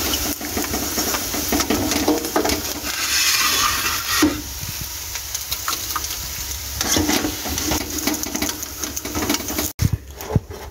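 Papad deep-frying in hot oil in a steel kadai, sizzling steadily, with scrapes and clicks of a wire-mesh skimmer against the pan as the pieces are lifted out. Near the end the sound breaks off for an instant and comes back quieter.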